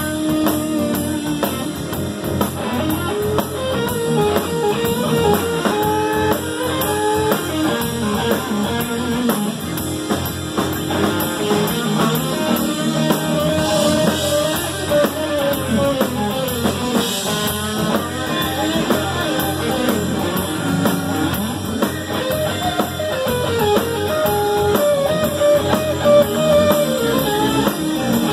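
Live instrumental band: an electric guitar plays a moving melodic line over a drum kit keeping a steady cymbal pattern, with electric bass underneath.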